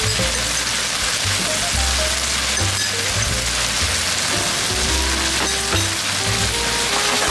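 Chicken and cashew-nut stir-fry sizzling in a hot pan, a steady hiss, under background music with a repeating bass line.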